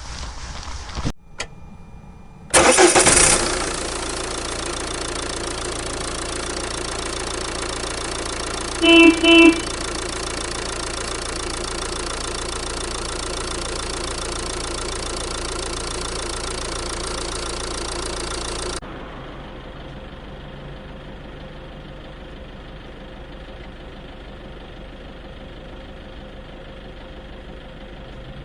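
A motor vehicle engine cranks and starts about two and a half seconds in, then idles steadily. Two short honks of a horn come about nine seconds in. The engine sound cuts off suddenly, and a quieter steady rumble carries on.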